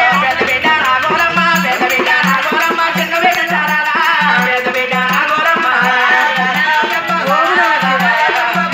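Oggu Katha folk music: voices singing over a steady, repeating beat of a small hand drum, with a jingling rattle keeping time.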